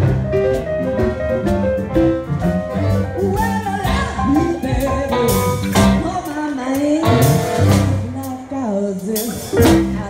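Live blues band with keyboard and drums. A woman's singing voice comes in over the band about four seconds in.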